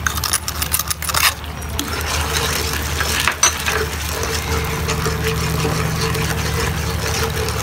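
Spatula scraping and knocking against a nonstick pan while stirring a thin sauce, busiest in about the first second, over a steady low mechanical hum.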